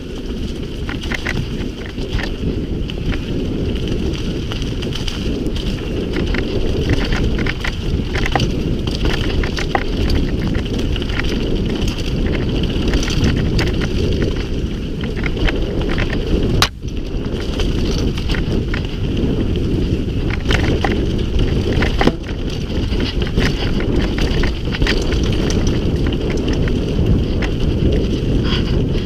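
Mountain bike rolling down a rough dirt trail: a steady rumble of tyres and wind on the microphone, with frequent small rattles and clicks from the bike over stones. There is one sharp knock about halfway through.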